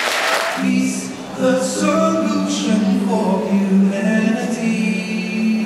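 Applause fades out in the first half second. Then a mixed choir sings unaccompanied in long, held chords, with a man singing lead into a handheld microphone.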